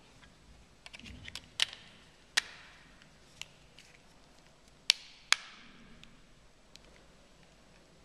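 Back cover of an HTC HD7 phone being pressed on and snapped shut: a series of sharp plastic clicks, the loudest about two seconds and five seconds in.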